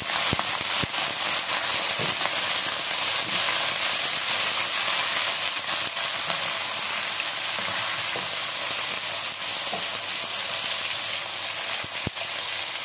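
Raw chicken pieces and sliced onions sizzling in hot ghee in a nonstick wok on a medium flame, stirred with a silicone spatula. A steady hiss eases slightly toward the end, with a single sharp click near the end.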